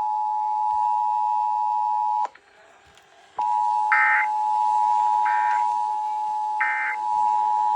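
Emergency Alert System two-tone attention signal: two steady tones sounded together, cutting out for about a second midway and then resuming. Three short, higher-pitched data bursts about a second and a half apart sound over it in the second half, typical of the EAS end-of-message code.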